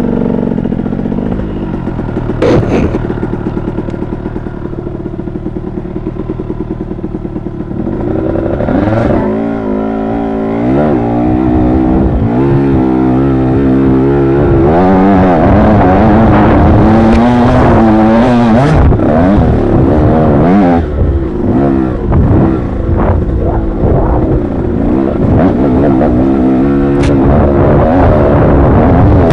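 Dirt bike engine heard from on the bike, its pitch rising and falling as the throttle is worked. It runs lower and steadier at first, then grows louder about eight seconds in and keeps revving up and down, with a few sharp knocks along the way.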